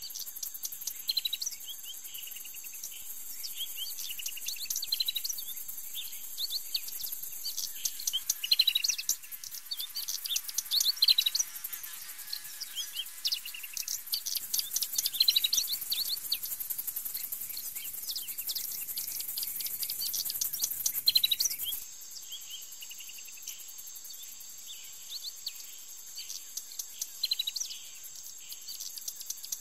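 Summer marsh ambience: small birds chirping many times over a steady high insect buzz. About three quarters of the way through, the buzz stops abruptly and a steady, even-pitched insect trill carries on under the chirps.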